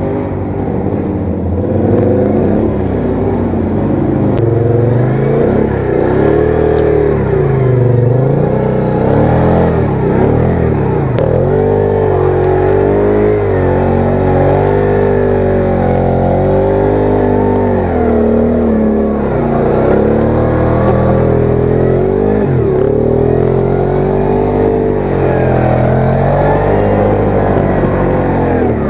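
ATV engine revving up and down under load in sand and mud, its pitch rising and falling every second or two.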